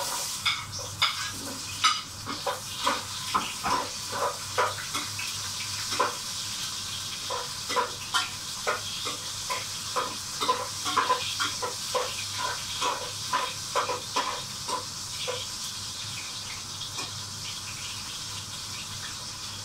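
Ginger dropped into hot cooking oil in a pot, sizzling at once with a steady hiss and many sharp crackling pops, which thin out over the last few seconds to an even sizzle.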